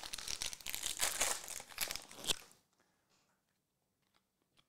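Foil wrapper of a Prizm UFC trading-card pack crinkling as hands open it and pull the cards out. The crinkling stops about two and a half seconds in.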